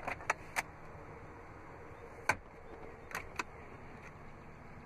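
Plastic glove box on a pickup's dashboard being unlatched and opened: a few sharp clicks and knocks, the loudest about two seconds in, over a steady low hum.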